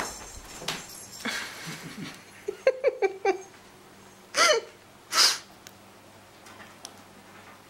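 Thumps and scrabbling as a cat and a ferret chase across a couch and the cat leaps up a cat tree. Then comes a quick run of short chuckling calls, and two short loud bursts about a second apart, the second breathy.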